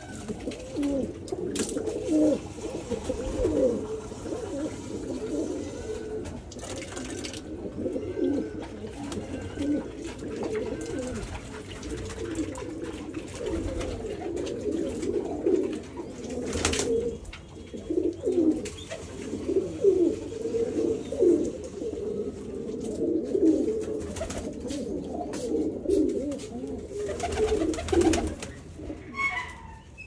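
A flock of domestic pigeons cooing continuously, many low burbling calls overlapping, with a few sharp knocks now and then.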